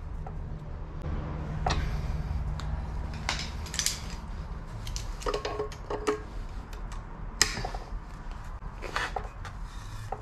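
Steel parts clinking and scraping as a plate and nuts are fitted onto threaded rods clamped in a bench vise and a wrench works a nut, with one sharp clink about seven seconds in. A steady low hum runs underneath.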